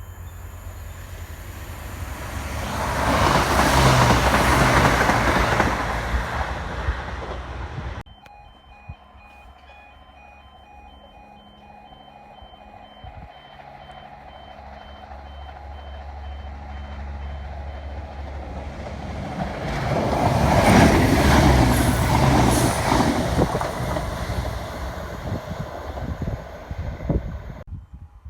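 Trains passing through a station twice, each a swell of rail and engine noise that rises and falls, peaking about four and about twenty-one seconds in, with an abrupt cut about eight seconds in. Between them are a steady low engine rumble and pulsing electronic warning beeps.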